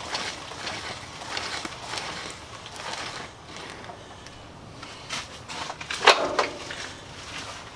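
Irregular short scrapes and clicks of hands-on work, with one louder knock about six seconds in.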